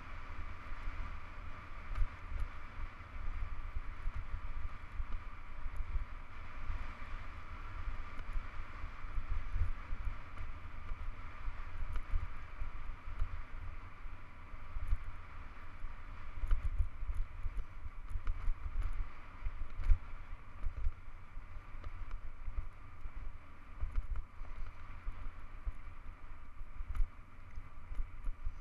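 Wind buffeting the microphone of a handlebar-mounted camera on a hardtail mountain bike descending a gravel road at speed, with the steady hiss of the tyres rolling over gravel and scattered small clicks and rattles from stones and the bike.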